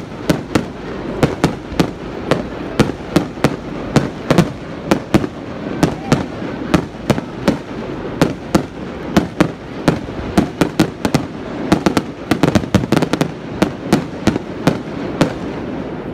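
Fireworks display: aerial shells bursting in a rapid barrage of sharp bangs, about two or three a second, coming thickest about twelve seconds in, over a steady hiss.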